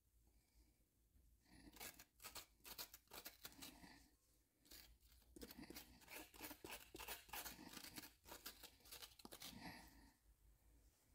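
Metal spoon scraping seeds and stringy pulp out of a halved acorn squash: a faint run of quick rasping strokes that starts about two seconds in and dies away near the end.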